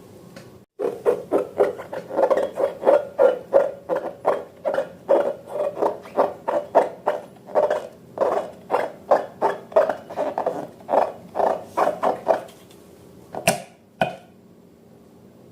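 Slime being squeezed and kneaded by hand, giving a quick rhythmic run of squelches, about two to three a second. Two sharp clicks come near the end.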